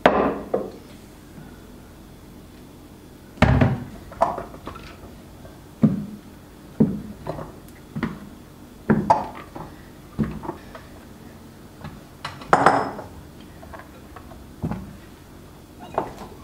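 Kitchenware being handled: a series of irregular clinks and knocks of dishes and glass containers being picked up and set down, roughly one a second, each with a short ring.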